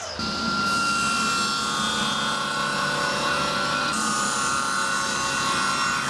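Power saw cutting through wood, a steady run with a thin whine over the cutting noise.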